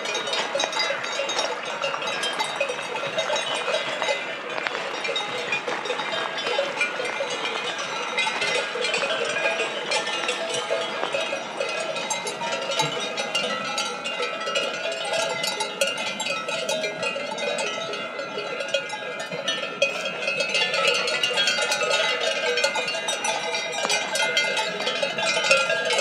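Many livestock bells clanking and tinkling together, a dense, unbroken jangle.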